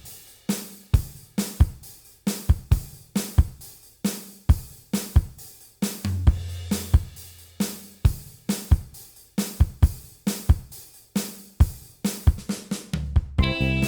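Background music: a steady drum-kit beat with kick, snare and hi-hat, about two hits a second. A held low bass note comes in briefly around six seconds in.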